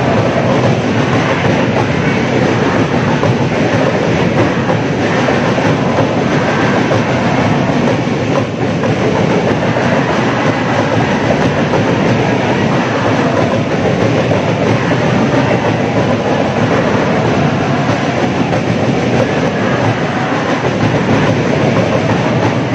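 Large crowd of school supporters singing and chanting together in a big indoor sports hall: a loud, steady wall of voices.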